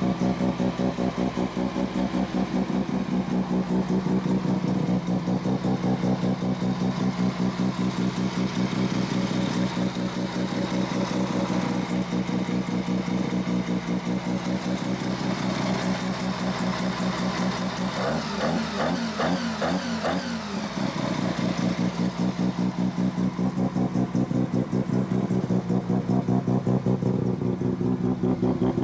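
Fuel-injected Mazda 13B peripheral-port rotary race engine idling with a rapid, choppy pulse. About two-thirds of the way through it is briefly revved up and drops back to idle.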